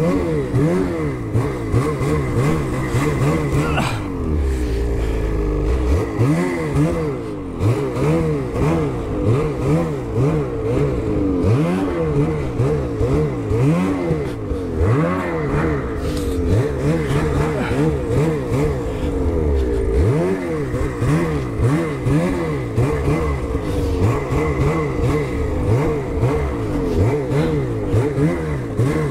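Ski-Doo snowmobile's two-stroke engine under hard, changing throttle, its pitch repeatedly rising and dropping back about once a second as the sled climbs through deep snow.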